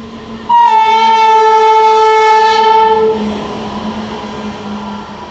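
Arriving express train's locomotive horn sounding one long, loud blast about half a second in, dropping slightly in pitch and stopping after about two and a half seconds. The rumble of the train running in carries on after it and fades.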